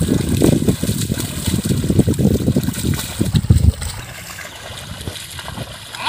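Hallikar bullocks' hooves and a wooden plough sloshing and squelching through flooded paddy mud, a rapid irregular splashing that eases off about two-thirds of the way through.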